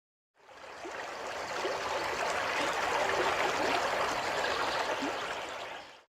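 Running water flowing and trickling with small bubbling, gurgling notes. It fades in about half a second in and stops just before the end.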